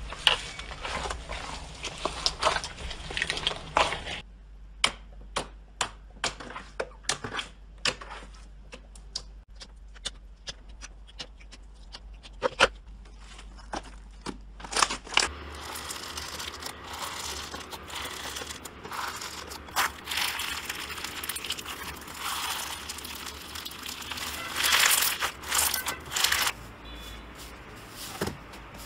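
Hands squeezing and poking slime in a run of short clips. Crunchy foam-bead slime crackles as it is mashed, then thick glossy slime gives sharp, separate clicks and pops as fingers press it, then there is more dense crackling.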